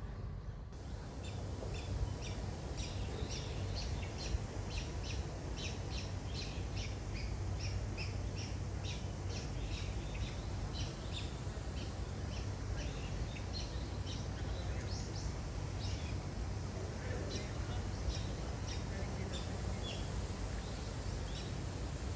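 Small birds chirping, short high chirps repeating two or three times a second, thicker in the first half and thinning out later, over a steady low background rumble.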